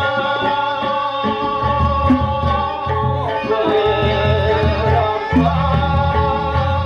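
Sasak gendang beleq gamelan playing: a row of small bossed kettle gongs struck with beaters, a bamboo suling flute carrying a long melody that slides down and back up, and low drum strokes underneath.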